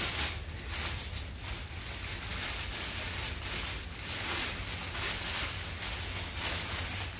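Plastic packaging crinkling and rustling as it is handled, in irregular surges.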